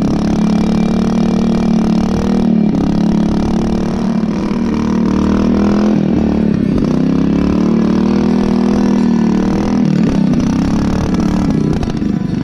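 Wheel Horse garden tractor's newly built engine running hard at high revs as the tractor drives through deep snow, the revs dropping and climbing again several times.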